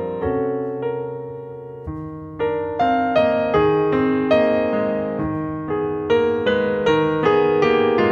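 Piano music: single notes and chords ring and decay, thinning out and fading for a moment before a louder phrase of repeated notes starts about two and a half seconds in.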